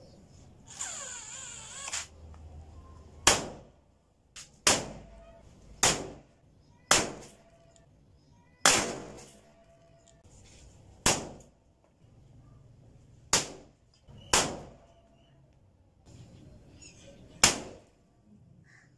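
A homemade toy artillery gun firing small firecracker-type explosive rounds: about nine sharp bangs at irregular intervals, some with a short echoing tail. A brief mechanical whir comes about a second in.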